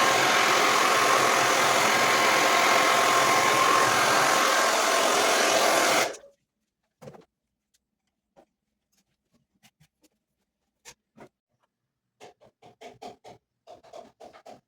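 Hair dryer running steadily with a faint whine, switched off suddenly about six seconds in. After that come only faint, scattered short clicks and taps.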